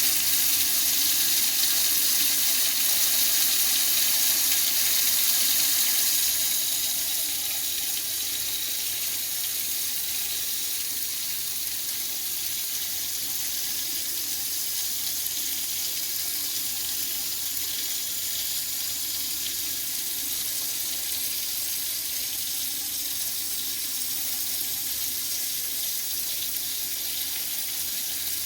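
Sink faucet running a steady stream of water, drawing hot water from a solar water heater tank. It grows a little quieter about seven seconds in, then runs on steadily.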